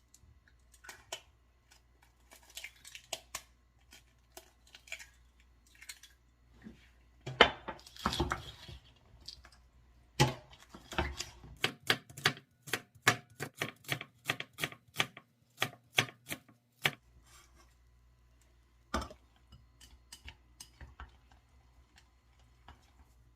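Knife chopping on a cutting board: scattered knocks, then a run of quick, even chops, about three a second, in the middle, tapering off to a few light taps.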